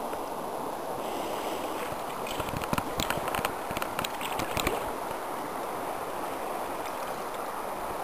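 River water rushing steadily, with a cluster of clicks and knocks about halfway through.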